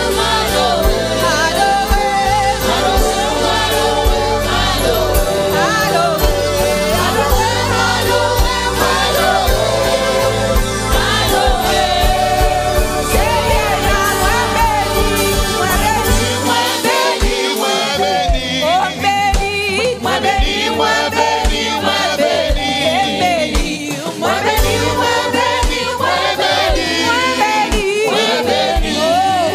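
A woman leading a gospel worship song, singing into a microphone with other voices and accompaniment on a steady beat. The deep bass drops out about halfway through, leaving the beat and the voices.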